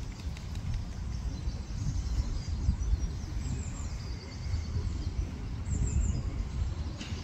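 Outdoor park ambience: an uneven low rumble on the microphone, with small birds chirping faintly and a few quick high chirps around the middle.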